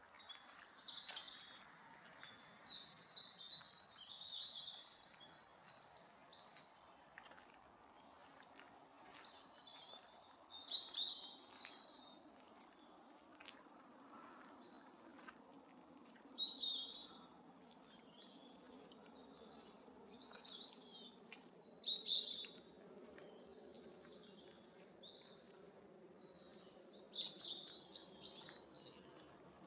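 Songbirds singing in short phrases every few seconds, with pauses between, over a faint steady outdoor background.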